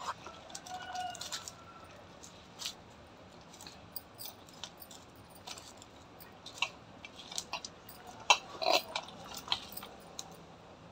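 Cooked rice being mixed by hand in a steel bowl: soft squishing and rustling of the rice, with scattered light clicks from glass bangles and fingers knocking the steel, busiest about eight seconds in.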